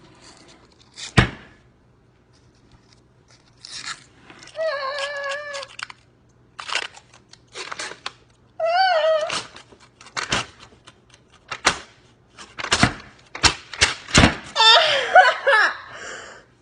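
A girl's high-pitched, wavering nervous squeals and whines, three times, between sharp taps and knocks.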